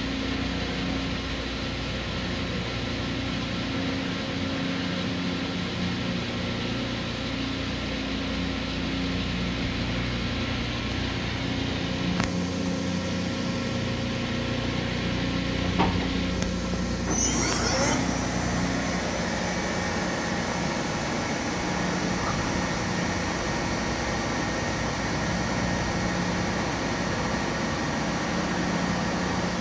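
Steady hum of running industrial machinery, with a low tone that drops in and out. There is a single click about sixteen seconds in, and a short high squeak about a second later.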